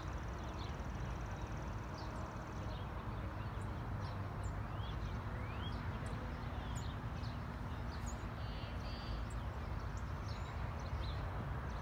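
A pony cantering on soft arena footing, its hoofbeats faint under a steady low rumble. Many short bird chirps are scattered throughout, with a brief fast trill a little past the middle.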